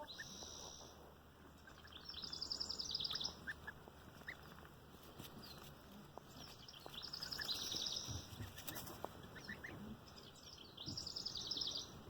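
A bird giving a rapid, high trill three times, a few seconds apart, after a short high whistle at the start.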